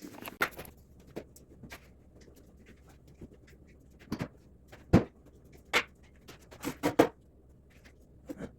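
Scattered clicks and knocks of hand tools and parts being handled. The loudest is a sharp knock about five seconds in, followed by a few more taps near seven seconds.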